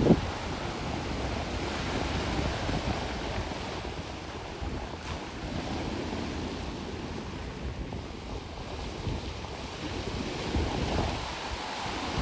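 Sea waves washing onto a shore of sand and gravel, with wind buffeting the microphone in low rumbles; a sharp gust hits right at the start.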